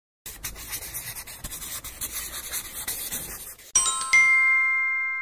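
Intro-card sound effect: a faint crackly, scratchy noise with many small clicks, then, a little under four seconds in, a bright bell-like chime of several tones at once that rings and slowly fades.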